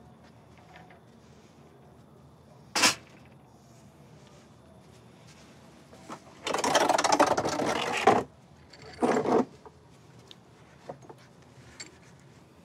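A tea tray with glasses of Turkish tea being set down and handled: a sharp knock, then a rattling, clinking stretch of nearly two seconds and a shorter burst a second later.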